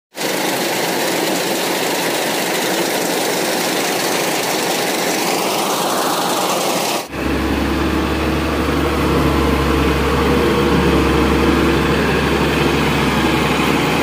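New Holland TC5.30 combine harvester running while cutting rice: steady engine and machinery noise. About halfway through the sound changes abruptly to a deeper, steady engine hum.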